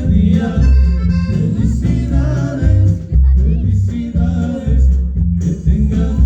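Loud music with a heavy, repeating bass line, accordion-like melody and singing.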